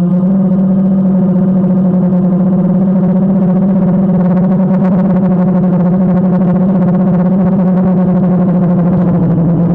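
DJI Phantom quadcopter's motors and propellers running steadily in flight, close to the mic of the GoPro mounted on the airframe: a loud, even hum with one strong low pitch and several overtones.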